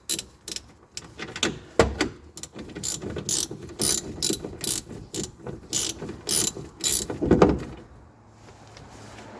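Hand socket ratchet clicking in short strokes, about two to three clicks a second, as a suspension bolt on a rear coilover mount is turned. A heavier clunk comes near the end.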